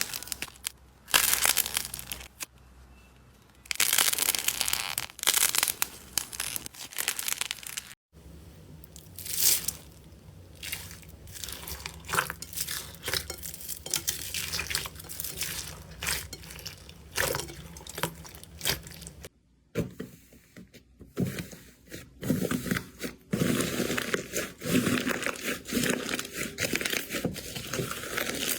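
Slime being squeezed and worked by hand, giving dense sharp crackles and pops. It comes in several clips, with brief breaks about eight seconds in and again past the middle.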